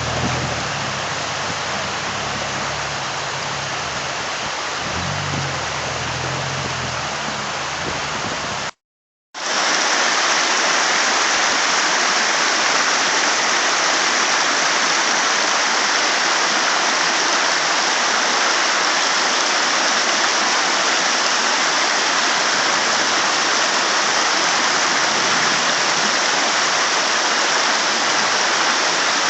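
Steady rushing of running water, an even hiss. For the first nine seconds a low rumble runs beneath it. The sound drops out completely for about half a second, then comes back louder and brighter, without the rumble.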